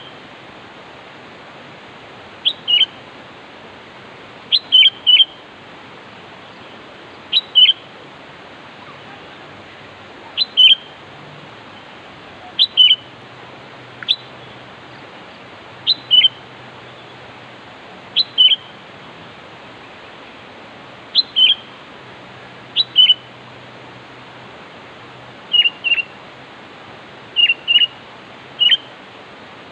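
Sooty-headed bulbul (kutilang) giving its calling call: short, sharp phrases of two or three notes, repeated every two to three seconds over a steady hiss. It is the kind of call played to draw in rival birds.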